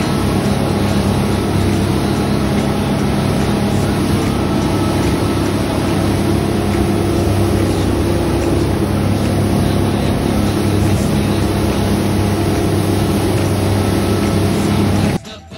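Charter fishing boat's engine running steadily underway, a constant drone mixed with wind and water rush. It cuts off abruptly near the end.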